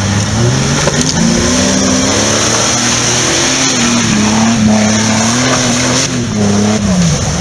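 Jeep Wrangler TJ's engine revving as it drives through deep mud ruts, the pitch rising and falling with the throttle and dropping away sharply near the end.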